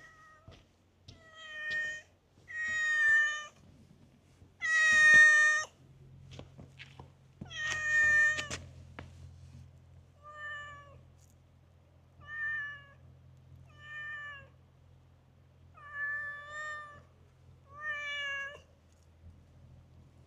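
Calico cat meowing over and over, about nine meows spaced a second or two apart, the loudest about five and eight seconds in and the later ones softer.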